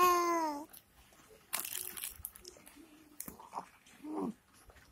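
Baby cooing: a drawn-out vocal sound that bends in pitch at the start and a short coo falling in pitch near the end. Between them come brief rustling and crinkling noises, around a second and a half in and again past three seconds.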